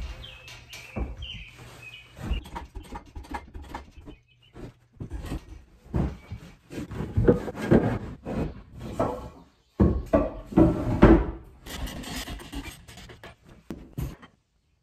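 Irregular knocking, clattering and scraping as wooden blocks and a board are shifted and set in under the heavy base of a lathe, with the loudest knocks about ten to eleven seconds in.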